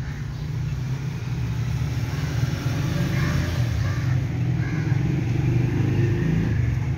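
Steady low rumble of a motor vehicle's engine running.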